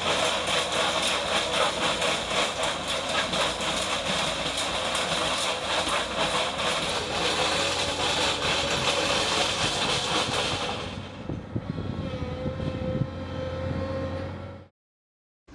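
Excavator-mounted Betek rock-trenching saw wheel grinding through stone, a dense gritty clatter of carbide teeth on rock. About eleven seconds in the cutting stops, and the wheel and machine run on more quietly with a steady tone as it lifts out of the cut. The sound then cuts off abruptly just before the end.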